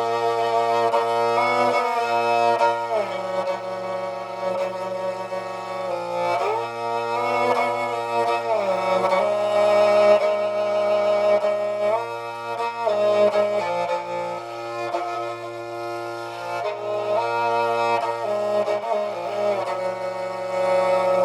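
ProIgil SHB igil, a bowed two-stringed Tuvan fiddle with a goatskin soundboard, being played. A melody moves with slides between notes over a steady low note that is held throughout.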